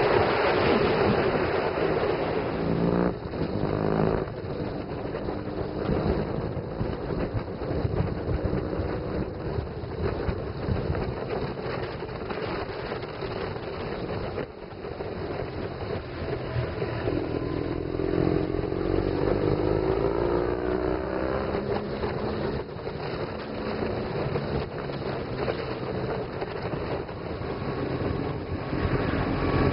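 BMW motorcycle engine running under way, its pitch rising and falling as it accelerates and eases off through the curves, with wind rushing over the microphone.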